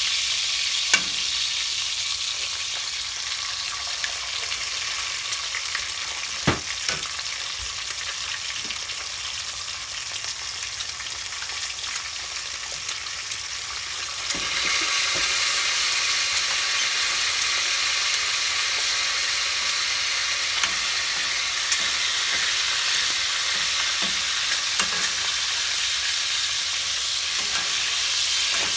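Eggs frying in hot oil in an aluminium pan, a steady sizzle with a few sharp taps. About halfway through, the sizzle suddenly grows louder as a fresh egg goes into the oil.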